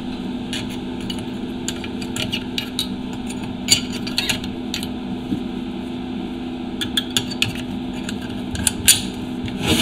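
Small metal parts and tools clinking and clicking as they are handled on a steel workbench, in scattered bunches of light knocks, over a steady low hum.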